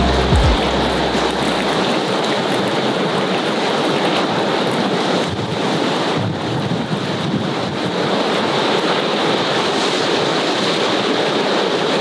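Meat sizzling on a grill over a wood fire: a steady hiss with fine crackles.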